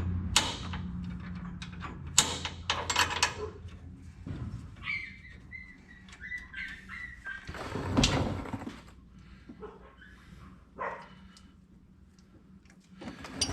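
Tool clicks and metal knocks as a square-headed bolt holding a ground cable to the truck frame is worked loose, with a high squeaky stretch in the middle, over a low steady hum.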